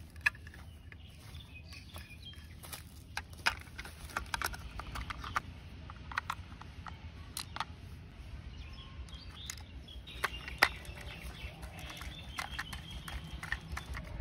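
Plastic toy truck parts being handled and snapped together, giving scattered sharp clicks and taps, the loudest about ten and a half seconds in. Birds chirp in the background, more so in the last few seconds.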